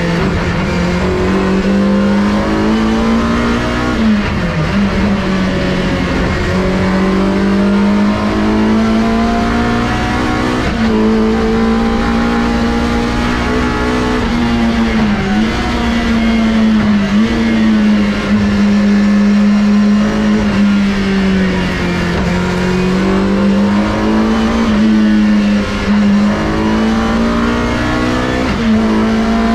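BMW M3 E30 Group A's 2.5-litre S14 four-cylinder racing engine at full race pace, heard from inside the cabin. It revs hard, the pitch climbing and then dipping sharply at each gear change, many times over.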